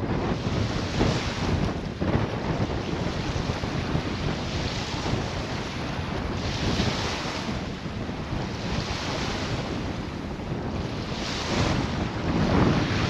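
Strong wind buffeting the camera's microphone, rising and falling in gusts, over the wash of wind-driven waves on a reservoir shore.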